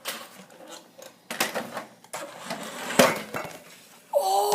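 Several sharp knocks and clatters of a toy RC car bumping and tumbling on a hard surface, then a child's loud, drawn-out shout near the end.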